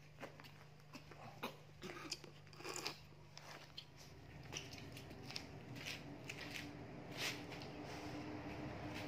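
Scattered soft rustles and clicks of a towel rubbing a wet baby monkey dry and of the monkey being handled, thickest in the first few seconds. A low steady hum comes up and grows louder in the second half.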